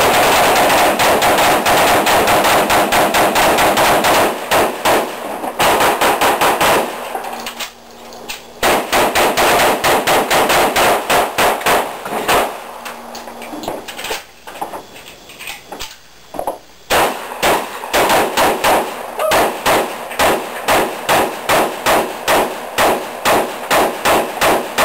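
Rapid semi-automatic gunfire from several shooters firing at once, the shots overlapping into a nearly continuous volley for the first few seconds. It then breaks into quick strings of separate shots with short lulls about eight seconds in and again around the middle, before quickening again.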